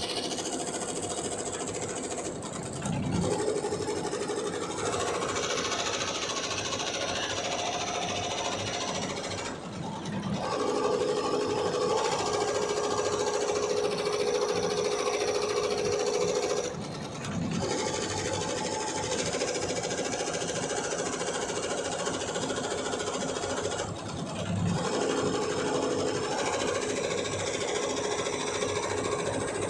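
Multi-head computerised embroidery machine with sequin attachments stitching at speed: a dense, steady mechanical clatter with a humming tone that comes and goes and brief dips every several seconds.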